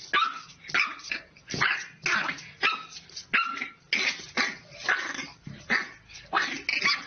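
Small puppy barking in a rapid run of high-pitched yaps, about two a second, with a little growling between them. The puppy appears to be a French bulldog.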